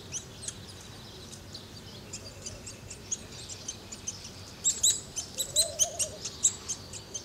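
Birds chirping: many short, high calls that come thickest and loudest in the second half, with a lower wavering call about five and a half seconds in.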